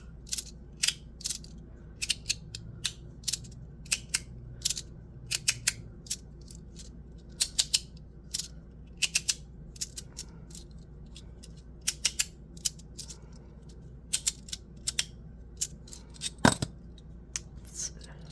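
3D-printed magnetic fidget slider being slid back and forth, clicking sharply as it snaps into place, at irregular intervals and often in quick pairs, with one louder knock near the end.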